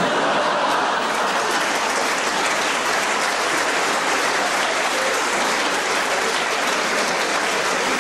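Live audience applauding, steady dense clapping throughout.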